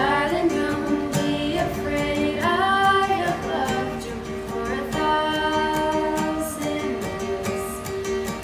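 A female voice singing a song with plucked string accompaniment, holding long notes that slide between pitches.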